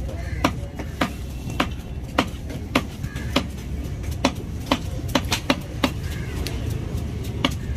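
Large fish knife chopping a tuna loin into cubes on a wooden chopping block: a sharp knock as the blade hits the wood, about twice a second, a quick run of strokes a little past the middle, then a pause before one last stroke near the end.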